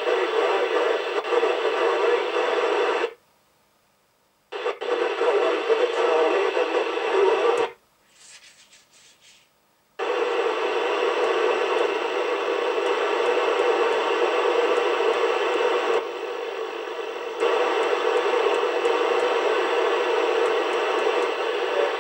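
Midland 4001 CB radio's speaker giving steady receiver hiss with the squelch open: no station on the channel. The hiss cuts out twice, for about a second and a half from about three seconds in and for about two seconds from about eight seconds in, with a few faint clicks in the second gap.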